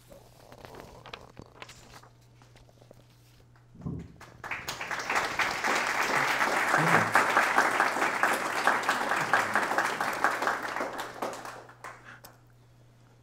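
Audience applause: a room full of people clapping, starting about four seconds in, swelling and then dying away near the end.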